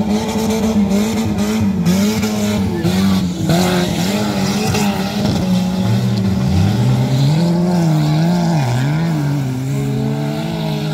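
Several stock car engines revving hard and rising and falling in pitch as the cars race through a dirt-track bend. A second, lower engine note weaves in from about six seconds in.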